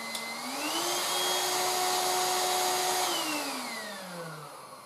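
Tefal Dual Force cordless stick vacuum's motor running with a steady whine that steps up to a higher speed, its second power level, just after the start. About three seconds in it is switched off, and the whine falls in pitch as the motor winds down to a stop near the end.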